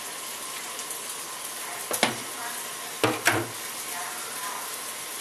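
Onion sizzling in hot olive oil in a skillet, a steady hiss, with a knock about two seconds in and two more close together about a second later.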